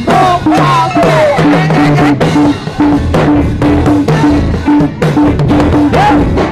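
Upbeat gospel praise music: a drum kit with kick and snare keeps a steady beat under a short repeating low riff. A voice slides over it in the first second or so and again briefly near the end.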